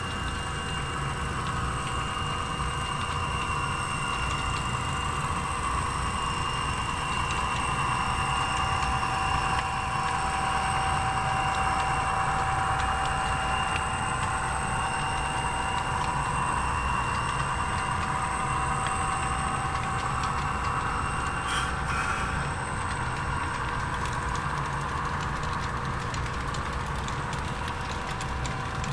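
HO-scale model freight train, led by Milwaukee Road SD40-2 locomotive models, running steadily past: a continuous rumble of wheels on the track with a steady whine from the running gear.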